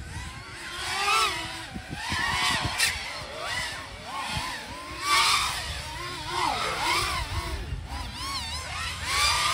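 Several FPV racing drones' electric motors whining at once, their pitch swinging rapidly up and down as the throttle changes through the course.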